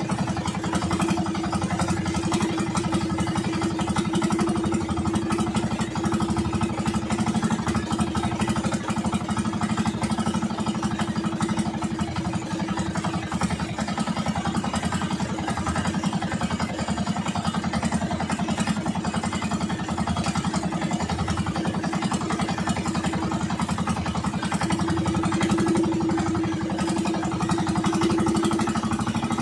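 Outrigger fishing boat's engine running steadily at an even pitch.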